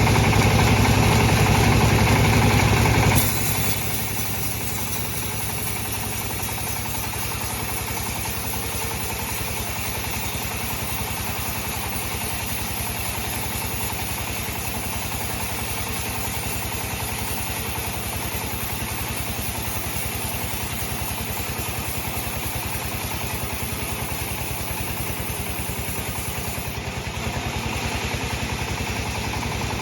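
Sawmill machinery running with a steady, engine-like drone and an even, rapid pulse; it is louder for the first three seconds, then drops and runs steadily.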